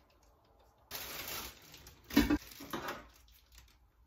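Plastic planter liner rustling as it is handled, then a sharp thump about two seconds in and a lighter knock soon after.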